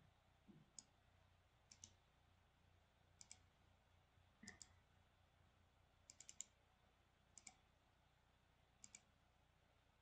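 Faint computer mouse and keyboard clicks, several of them in quick pairs, spaced a second or more apart over near silence.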